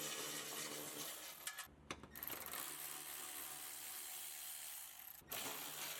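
Faint mechanical clicking and rattling of hand tools undoing the fasteners on a car's underbody heat shield, broken twice by abrupt cuts.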